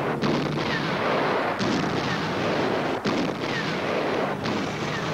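Artillery shelling: four heavy shell bursts about one and a half seconds apart, each a sudden crack trailing off into a rumble, over a steady low hum.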